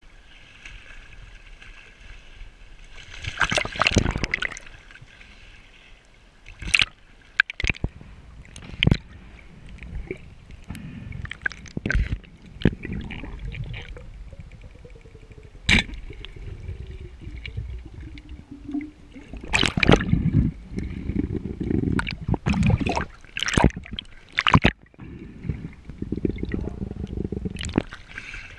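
Sea water sloshing and gurgling around a diver's action camera as it moves between the surface and underwater, with splashes and many sharp knocks scattered through. The water noise is loudest about four seconds in and again from about twenty seconds in.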